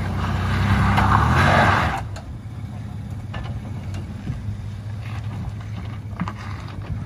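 Toyota 4Runner engine running under load as the truck crawls up a sandy, rocky slope, louder for the first two seconds, then running steadily, with a few faint clicks.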